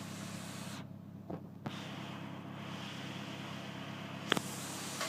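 BMW 318i engine idling steadily, with a few short clicks, the sharpest about four seconds in.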